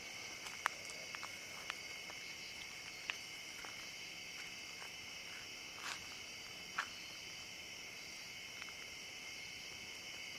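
Steady, high-pitched chorus of night insects such as crickets, with a few short clicks and snaps scattered through it, the sharpest about a second in and again near seven seconds.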